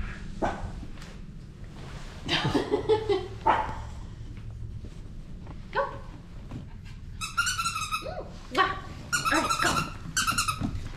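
Japanese Spitz puppy yapping in play: a string of short, high-pitched yips in the second half.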